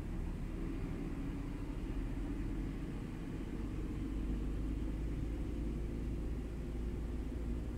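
Diesel engine of a heavy truck pulling interlink curtain-side trailers past at low speed, a steady low rumble.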